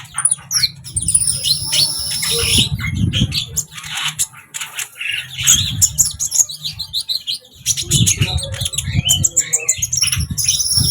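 A caged sunbird (kolibri) singing energetically: rapid high chirps and trills in quick runs. A low rumble comes and goes underneath.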